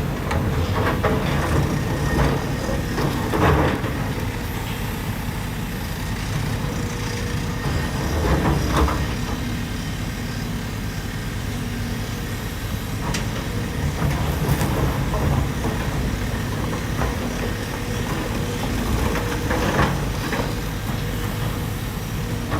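Excavator diesel engine running steadily at working revs, with a few clunks at intervals.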